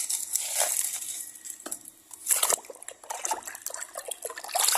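Hands digging and scraping through sand, with small clicks and clinks of plastic toy vehicles knocking together, louder in bursts.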